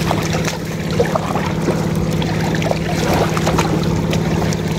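Steady low engine drone, with scattered small sharp ticks and taps as a net full of small fish is handled.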